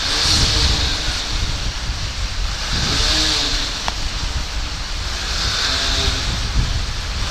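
Motorcycle riding through a road tunnel: steady engine and wind rumble that swells three times, about every two and a half to three seconds.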